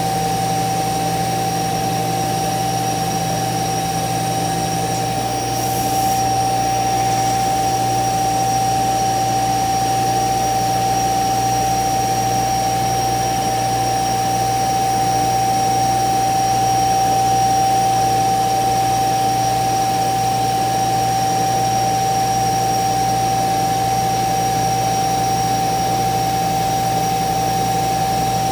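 CNC router running, its spindle giving a steady high whine over a low machine hum, with a brief hiss and a slight change in tone about six seconds in.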